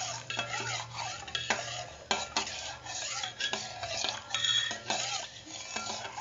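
Metal spoon stirring and scraping against the inside of a steel saucepan, with irregular clinks and scrapes over a low steady hum. The custard-and-milk mixture is being stirred constantly as it starts to thicken, to keep lumps from forming.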